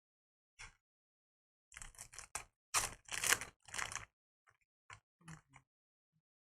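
Trading card packs and cards being handled: a run of crinkly rustling and scraping from about two seconds in that lasts about two seconds, then a few light taps and clicks.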